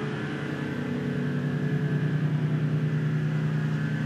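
A boat's motor running steadily with a low, even hum.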